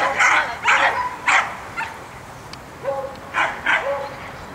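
A dog barking: a quick run of five or six barks, a pause of about a second and a half, then three more barks.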